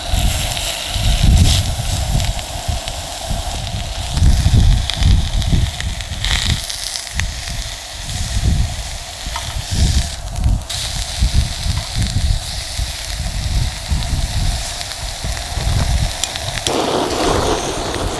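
Strong gusty wind buffeting the microphone, an uneven low rumble that surges and drops every second or so, over a steady hiss.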